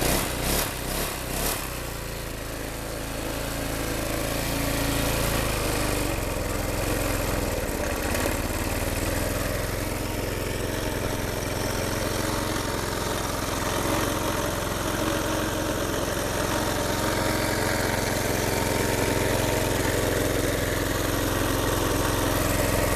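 Six-horsepower Tecumseh lawn mower engine running, a little unevenly for the first couple of seconds, then holding a steady speed. It has a new carburetor and a replacement camshaft fitted.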